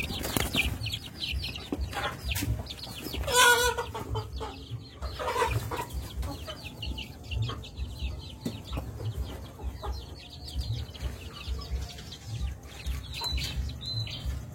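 Chickens clucking in a string of short repeated calls, with a louder drawn-out call about three and a half seconds in and another about five seconds in.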